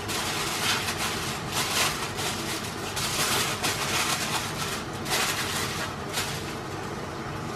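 Aluminium foil crinkling and rustling as it is folded around food, in uneven crackles.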